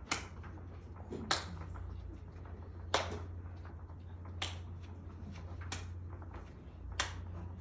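Single hand claps, six of them about every second and a half, each a sharp crack. They are the cue signals in a tic-simulation exercise, each telling participants to touch their pinky.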